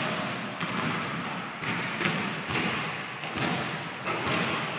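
Basketball and players' sneakers thudding on a hardwood gym floor in a pickup game: about five irregular thuds that echo in the hall.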